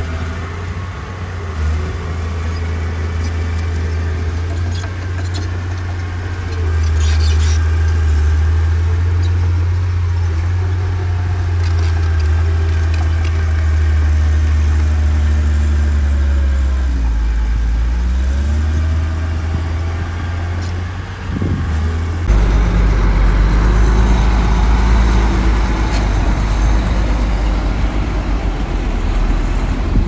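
Heavy diesel engines of earthmoving machines working sand, a steady low drone that dips and rises in pitch a little past the middle. About three-quarters through it changes abruptly to a deeper, louder engine drone.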